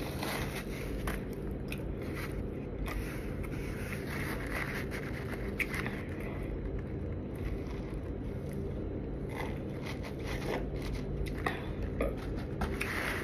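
Chewing a chicken taco, with small scattered mouth clicks and the rustle of a paper napkin wiping the hands, over a steady low room hum.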